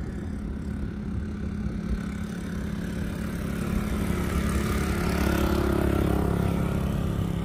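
An engine running steadily with a low hum. It grows louder from about halfway through and eases slightly near the end, as if it passes close by.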